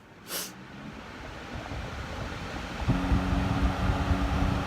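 Lasko 3733 box fan switched on with a short click, then its blades spinning up: a rush of moving air that grows for about three seconds until the motor's steady hum sets in near the end, running at high speed.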